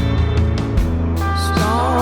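Background rock music with a steady beat, and a gliding pitched line coming in about a second and a half in.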